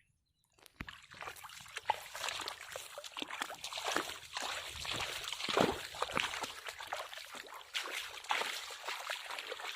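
Muddy pond water splashing and sloshing, starting about a second in and going on as a busy run of small splashes and trickles, as from hands working through shallow water while catching fish.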